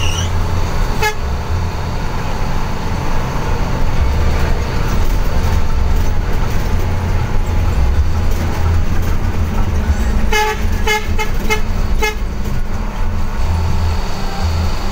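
Mitsubishi BM 117 bus under way, heard from inside: a steady low engine drone, with one short horn toot about a second in and a quick run of five or six short horn toots about ten seconds in.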